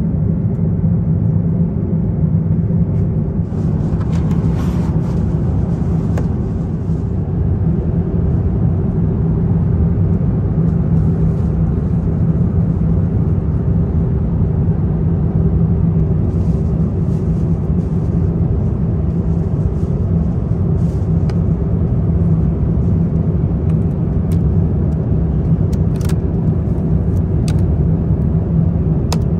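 Steady cabin roar of an Airbus A350-900 in climb: engine and airflow noise with a low hum, with a few faint clicks.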